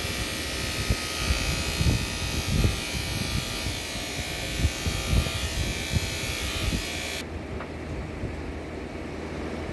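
Electric hair clippers running with a steady buzz while shaving a head, switched off suddenly about seven seconds in. Soft low thumps of handling come through now and then.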